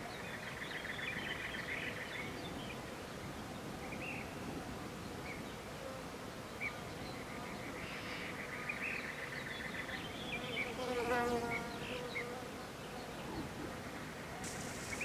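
Faint outdoor ambience: a buzzing, pulsing insect-like trill comes and goes over a low hiss, with a short pitched call a little after the ten-second mark.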